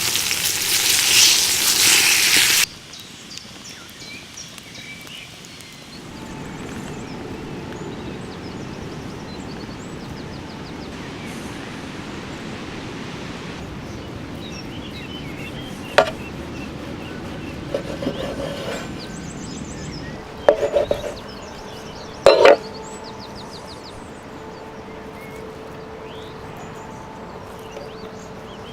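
Outdoor ambience with birds chirping now and then and a few sharp knocks, opening with a loud rushing noise that cuts off suddenly after two or three seconds.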